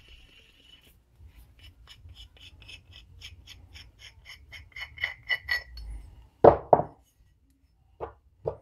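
Steel parts of a cam bearing installer being taken apart: a quick, even run of ringing metallic clicks, about four or five a second, as the plate is spun off the threaded forcing screw, followed by a couple of louder metal clunks as the parts are handled.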